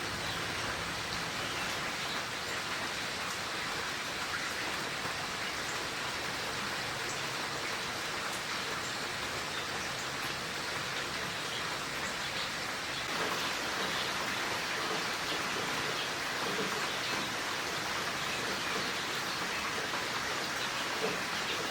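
Steady rain shower falling.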